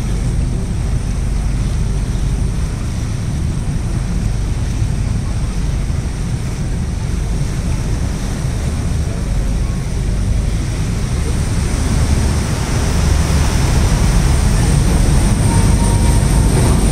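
Tour boat's engine running, a steady low rumble with hiss over it, growing louder about twelve seconds in.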